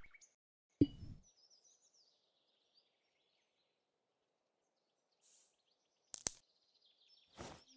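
Faint cartoon sound effects. A dull thump comes about a second in, followed by faint high bird-like chirps. Near the end there is a sharp double click of a button being pressed on a small handheld gadget, then a short hiss.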